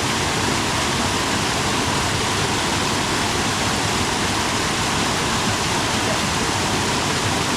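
Rushing water of a moorland stream, a steady, unbroken roar.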